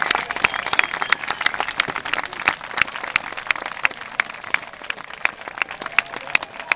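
A crowd applauding: many hands clapping unevenly, gradually thinning and getting quieter.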